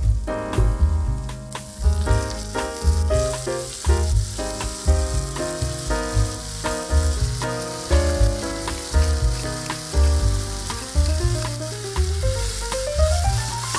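Food sizzling as it fries in a pan, the hiss coming in about three seconds in, under background music with a steady beat.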